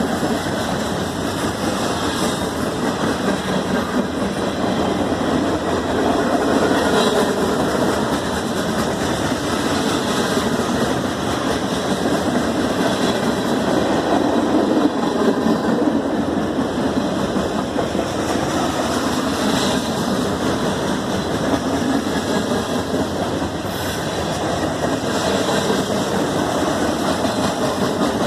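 Norfolk Southern freight train rolling past: a steady rumble of steel wheels on the rails, with a faint click now and then.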